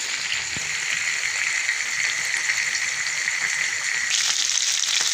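Chicken leg pieces shallow-frying in a little oil in a nonstick pan over a low flame: a steady sizzle. About four seconds in it changes abruptly to a brighter, slightly louder sizzle.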